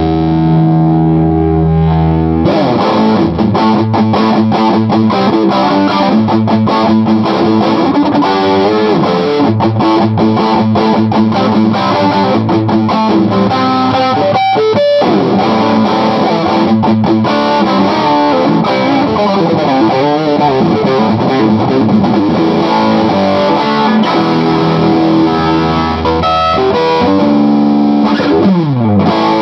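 Electric guitar played through a modified Bell & Howell Filmosound tube amplifier, with an overdriven tone: a chord held for a couple of seconds, then busy riffing, and a slide down the strings near the end.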